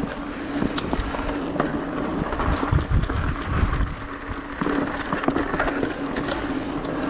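Mountain bike rolling fast along dirt singletrack: steady tyre and drivetrain noise with sharp rattles and clicks from the bike over the trail, and low rumbling thumps a few seconds in.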